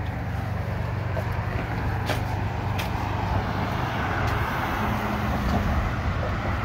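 Road traffic going by: a steady low engine rumble with tyre noise that swells about four seconds in as a vehicle passes.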